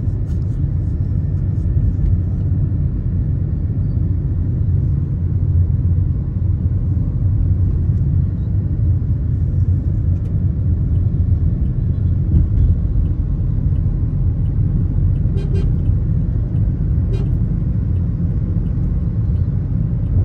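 Steady low rumble of a moving car, engine and road noise heard from inside the cabin.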